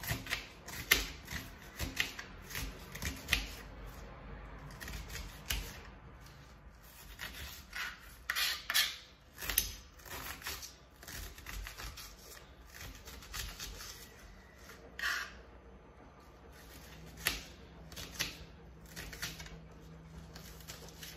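Kitchen knife chopping a red onion on a cutting board: a run of quick, uneven taps that comes in bursts with short pauses between them.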